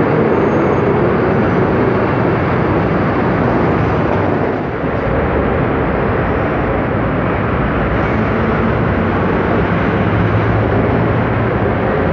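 Diesel city buses driving past close by in busy street traffic: a steady, dense rumble of engines and tyres, with a brief dip about five seconds in.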